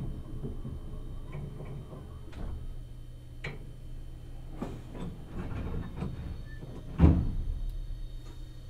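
Inside the passenger cabin of a Meitetsu 1000 series Panorama Super train, plausibly standing at a station with its doors open: a low steady hum with scattered knocks and clicks, and one heavy thump about seven seconds in.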